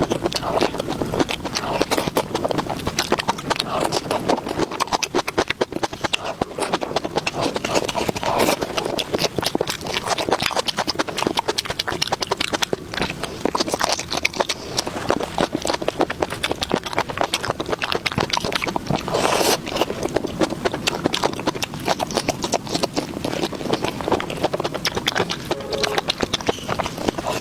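Close-miked chewing of food, with continuous wet smacking and clicking mouth sounds.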